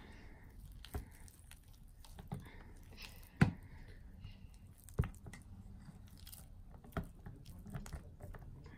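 A silicone spatula working thick shea butter cream in a stainless steel bowl: soft squelching of the cream with knocks of the spatula against the metal bowl every second or two, the sharpest about three and a half seconds in.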